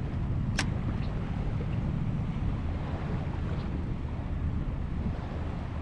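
Steady wind rumble on the microphone over a wash of waves, with one sharp click about half a second in.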